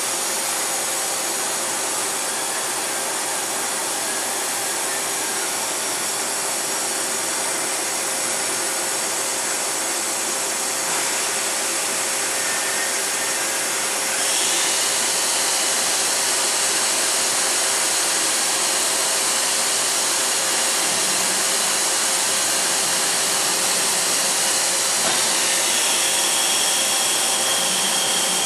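Spindle of a 2011 DMG Mori Seiki DMU 50 five-axis machining center running at 3,800 RPM: a steady whirring hiss. About halfway through it gets louder and brighter, with a high whine added.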